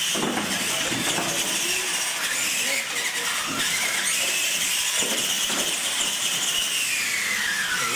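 Radio-controlled monster trucks racing, their electric motors and gears whining high and steady, the whine falling in pitch near the end as the trucks slow. A couple of knocks about five seconds in as the trucks land off the ramps.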